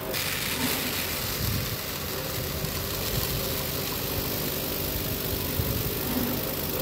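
Vibratory feeder running with a steady hum while grain streams off its tray into a bin with a continuous hiss.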